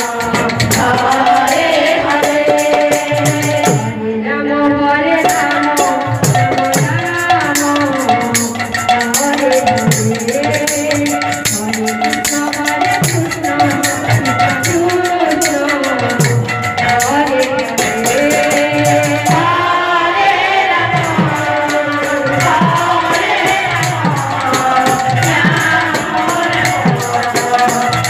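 Live Odia kirtan music: singing over a hand-played drum and a steady, fast metallic jingling rhythm.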